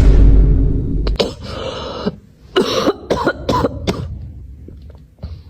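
Repeated coughing: a loud first cough, then a run of short harsh coughs a couple of seconds in, tailing off.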